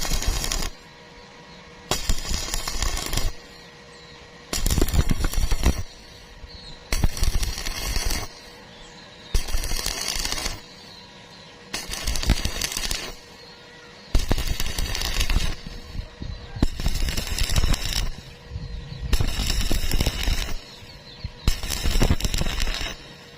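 Stick welding arc crackling on thin square iron tube in repeated bursts of about a second and a half, broken off and restarted after short pauses, nine or so times. This on-off arc keeps the heat down so thin-walled iron does not burn through.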